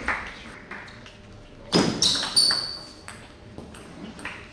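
Celluloid table-tennis ball clicking off a bat at the end of a rally. After a pause there is a louder knock about two seconds in, followed by brief high squeaks.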